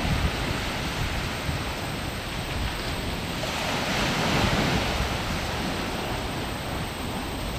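Wind blowing on the microphone: a steady rushing hiss over a low rumble, swelling a little around the middle.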